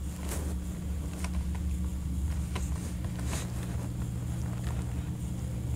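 A steady low hum with a few faint, scattered taps of fingers typing on a tablet's touchscreen keyboard.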